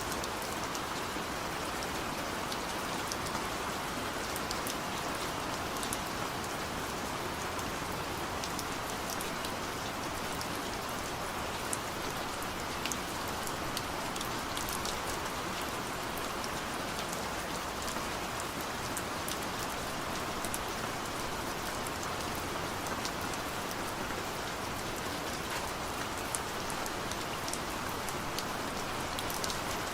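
Steady rain falling, a constant hiss of rainfall with many small, sharp drop ticks scattered through it.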